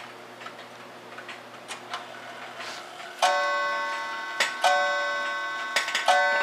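Freshly serviced Seth Thomas Napoleon mantle clock ticking softly, then striking three o'clock. Its three ringing strokes come about a second and a half apart from about three seconds in, each left to ring on.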